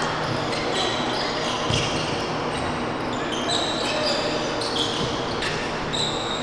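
Basketball shoes squeaking in many short high-pitched chirps on a hardwood gym floor, with a basketball bouncing as players run the court, in an echoing gym.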